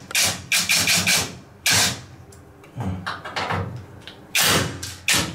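Cordless drill-driver unscrewing hex bolts from a washing machine's metal panel in several short bursts, with clatter between them.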